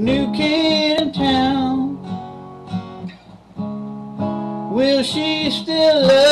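A man sings with an acoustic guitar strummed along. There are two sung phrases, with a stretch of guitar between them.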